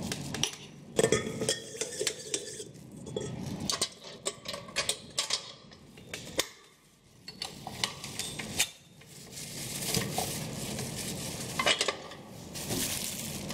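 Stainless steel mixing bowl and flat beater paddle clinking and knocking as they are handled and fitted onto a KitchenAid stand mixer. The metal knocks come in scattered clusters, with a short lull a little past the middle.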